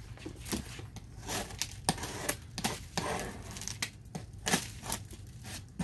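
Plastic pallet stretch wrap crackling and crinkling as it is pulled and cut with a box cutter, in scattered sharp crackles, with light knocks of cardboard boxes.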